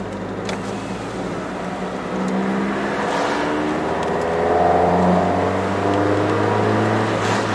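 Mazda Eunos Roadster (NA) four-cylinder engine with individual throttle bodies and a new Car's CP1 muffler, heard from inside the cabin under gentle acceleration. The intake and exhaust note rises in pitch and gets louder over a couple of seconds from about two seconds in, then holds steady, a restrained, gentle sound.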